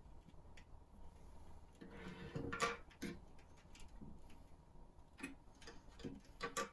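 Small clicks and taps of plastic model parts and wiring being handled and fitted together by hand, with a longer, louder handling noise about two seconds in.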